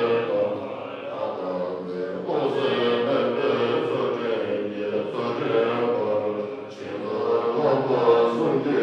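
Group of Buddhist monks chanting prayers together in a steady, low unison, with long held notes.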